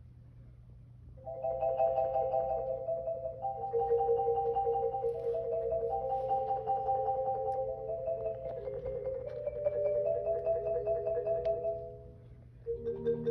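Solo concert marimba struck with mallets. After a short pause, quick repeated notes and rolls in the middle register run for about ten seconds, break off briefly, and lower notes come in near the end.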